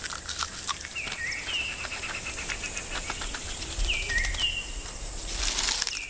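Narrow-striped mongoose foraging in dry leaf litter and grass: crisp rustling and scratching clicks, over a steady high insect hiss. Short two-note chirps, each dropping in pitch, come about a second in and again around four seconds in.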